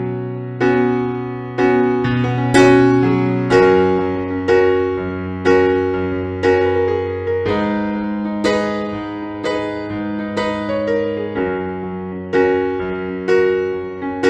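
Background piano music: slow, gentle keyboard chords struck about once a second, each note left to ring and fade.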